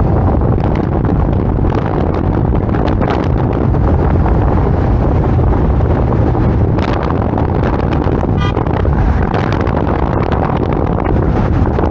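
Wind buffeting the microphone of a roof-mounted camera on a moving car, over the car's steady road and traffic noise, with scattered short crackles.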